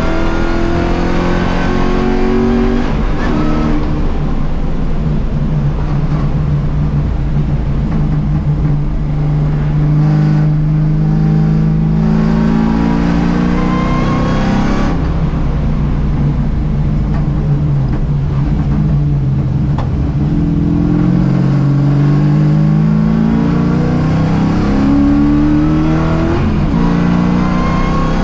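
Ford Mustang race car's engine heard from inside the cockpit, pulling hard on track. Its pitch climbs and drops back at upshifts several times, with a long stretch of steady revs in the middle.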